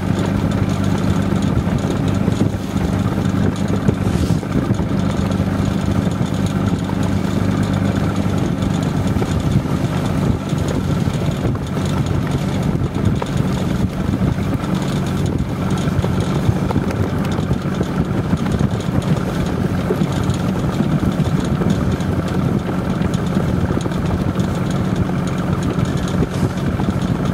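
Boat engine idling steadily, a low hum with a constant hiss over it.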